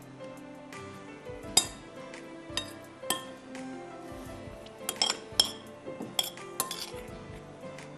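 A metal spoon and fork clinking against a glass bowl as a cucumber salad is tossed: several sharp clinks, irregularly spaced, the loudest about one and a half seconds in. Soft background music plays under them.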